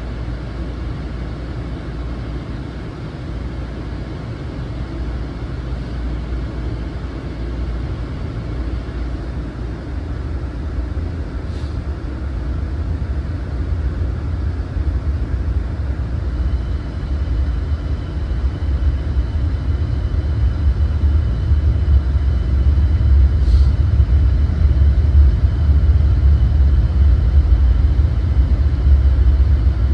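LIRR M9 electric multiple-unit train running, a steady low rumble heard from inside the car that grows louder through the second half. A faint high steady whine joins about halfway, and two brief ticks sound.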